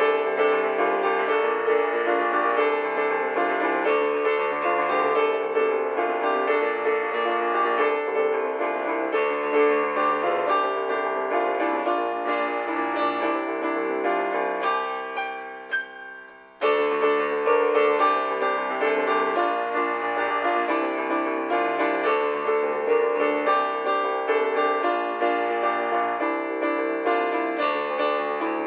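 Computer-sequenced piano music playing many notes at once. A little past halfway it dies away, then starts again suddenly.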